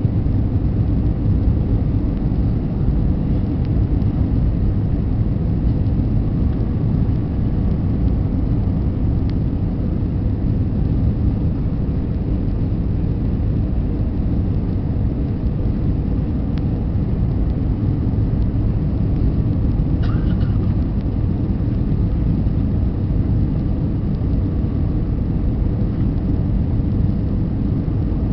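Steady low cabin roar of an Airbus A320 on final approach, engine and airflow noise heard from a window seat over the wing.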